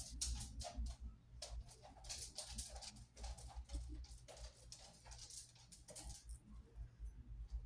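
Light, irregular clicking and ticking of small metal split rings and beads being handled and worked together by fingers, over a low steady hum.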